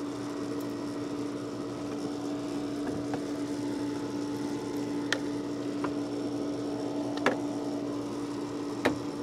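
A steady motor hum, with three sharp clicks and knocks from the pool heater's plastic top cover being lifted off and handled.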